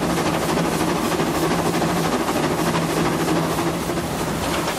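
Steady running noise of a narrow-gauge steam train in motion, heard from on board, with a low hum under a hiss that pulses quickly and regularly.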